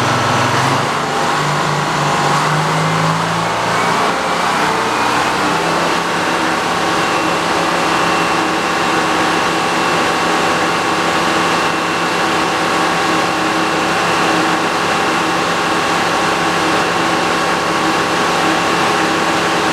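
Frick sawmill's power engine driving the spinning circular saw blade, rising in pitch over the first several seconds as it picks up speed, then running steady with a high whine from the blade.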